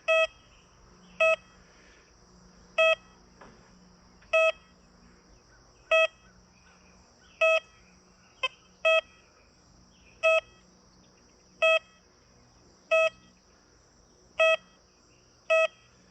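Metal detector target tone from an XP Deus 2 running the Deus Mono program at 4 kHz: a short, high-pitched beep repeats about once every second and a half as the coil hovers over a US quarter beneath a fridge magnet. The beeps stay at the same pitch, which signals a steady high-conductive coin response.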